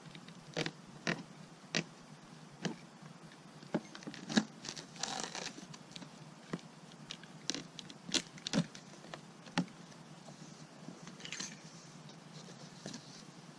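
Pressure washer's cardboard box being opened and handled: irregular sharp knocks and taps, with a couple of longer scraping rustles.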